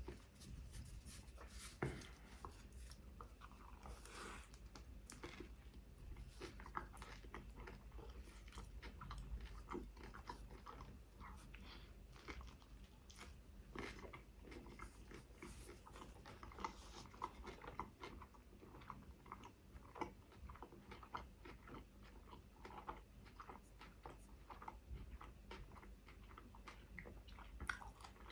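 Close-miked chewing and biting of a chicken shawarma wrap, with many small crunches and mouth clicks throughout.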